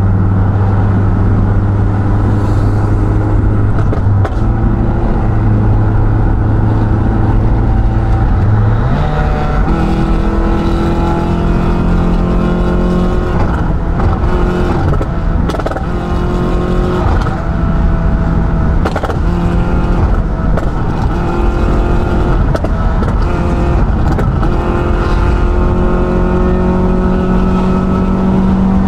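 Toyota Vios NCP150's four-cylinder engine breathing through a Kakimoto GT Box Hyper Rev muffler, heard from inside the cabin while driving: a steady exhaust drone that climbs in pitch about a third of the way in as the engine revs up, then rises and falls with the throttle.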